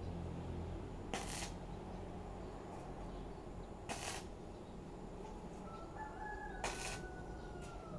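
Stick (arc) welder striking three brief arcs on the steel bumper, each a short crackling burst of about a third of a second, about a second, four seconds and six and a half seconds in: short tack welds holding the panels.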